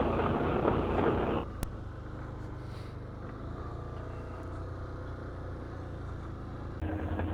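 Off-road vehicle engine running under throttle, then easing back to a quieter steady idle about a second and a half in, with a single click just after.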